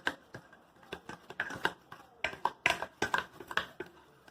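Slime being stirred in a container: a mixing utensil taps and clicks irregularly against the container, about three or four times a second.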